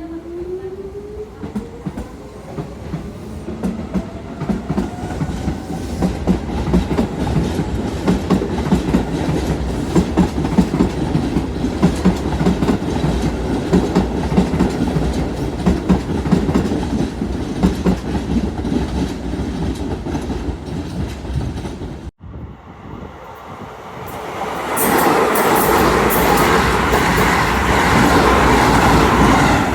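Electric train passing: a motor whine rising in pitch at the start as it gathers speed, then a steady rumble with the fast clatter of wheels over rail joints. After a sudden cut about 22 seconds in, a louder stretch of train noise fills the last few seconds.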